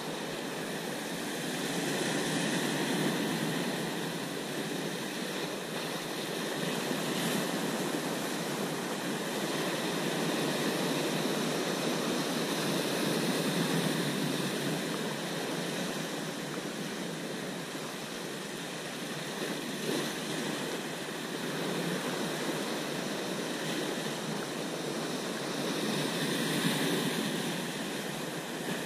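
Heavy sea surf breaking and surging over rocks: a steady rushing with slow swells in loudness.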